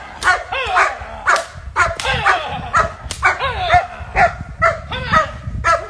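German Shepherd barking over and over, about two to three short barks a second.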